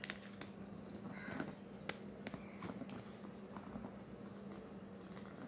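Cardboard smartphone box being handled and opened by hand: faint scattered taps and light scrapes.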